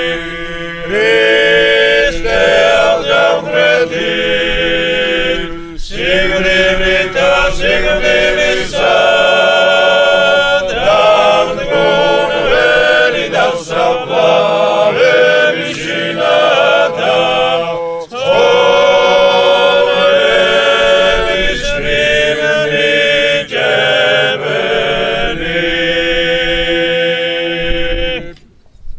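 A choir singing Greek Orthodox Byzantine chant unaccompanied, the melody moving over a steady held drone note. It breaks off briefly just before the end.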